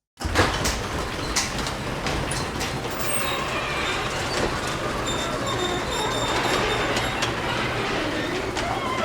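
Garage door rolling along its metal tracks: a steady rumble with rattling and clicking from the rollers, and thin high squeaks joining in after about three seconds.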